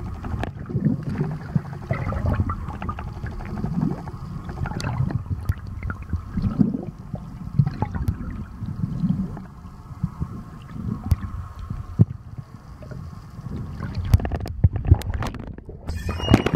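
Muffled underwater water noise inside a shark cage at the surface: low sloshing and gurgling with scattered sharp knocks. In the last second a louder burst of knocking and bubbling hiss as a great white shark hits the cage and churns the water into bubbles.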